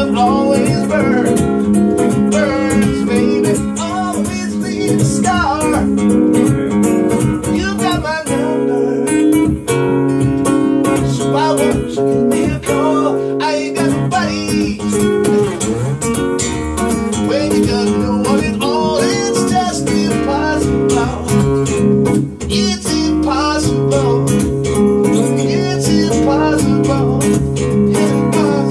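Acoustic guitar strummed and picked as accompaniment in a live song performance.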